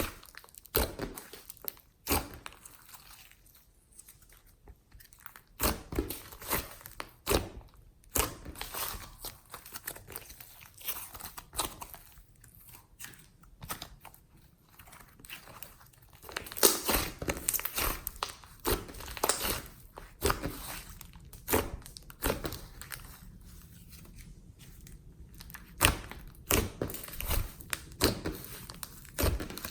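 Glossy slime with flower clay mixed in, being kneaded, pressed and stretched by hand: irregular sticky clicks, pops and crackles, coming thickest about halfway through.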